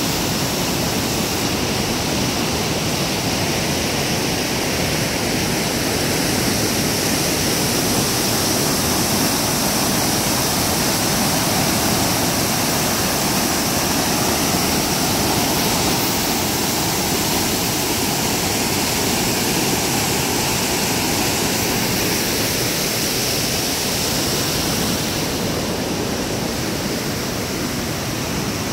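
River rapids and a small waterfall rushing over granite ledges: a loud, steady wash of falling whitewater, a little duller and quieter near the end.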